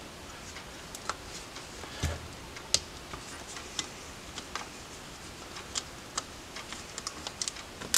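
Small metal clicks and taps from a screwdriver working at the screws of an Edelbrock 1406 carburetor's electric choke housing, coming irregularly about a second apart, with a duller knock about two seconds in and a quick cluster of clicks near the end.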